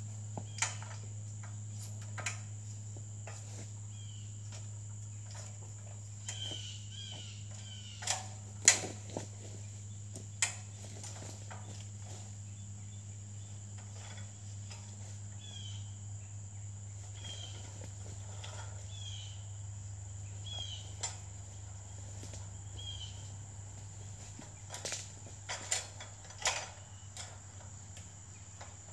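Big Game 17-foot two-person metal ladder stand clanking and knocking as it is walked upright and leaned against a tree, in scattered sharp knocks. The loudest comes about nine seconds in, with a quick cluster near the end. Crickets keep up a steady high drone underneath.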